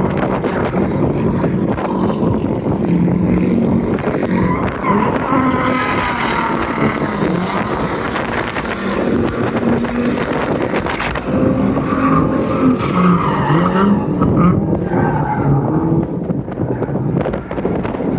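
Drift cars' engines revving up and down repeatedly, with tyres squealing as the cars slide.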